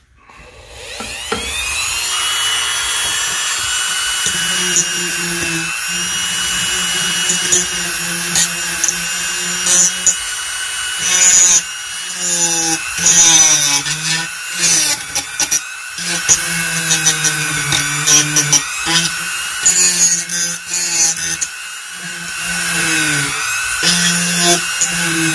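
Dremel rotary tool spinning up about a second in, then running with a steady high whine. The whine dips in pitch and recovers again and again as the bit is pressed against the corroded contacts of the toy's circuit board to grind the corrosion off.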